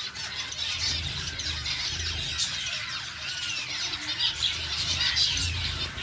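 A colony of caged finches chattering: many overlapping short, high calls, with a few clear arching whistles.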